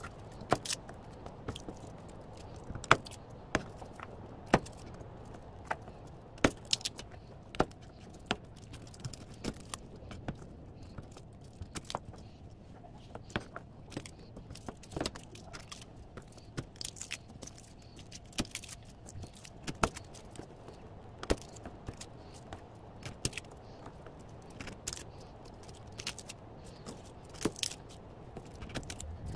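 Kitchen knife tapping down through garlic cloves onto a wooden cutting board as the root ends are sliced off: irregular sharp taps, roughly one or two a second, over a faint steady hum.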